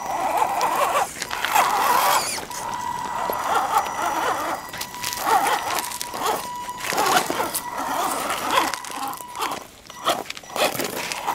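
Axial SCX10 electric RC rock crawler climbing over rock. A thin, steady high whine from its drive motor comes and goes with the throttle, over irregular scraping and crunching of its tyres on rock, grit and dry grass.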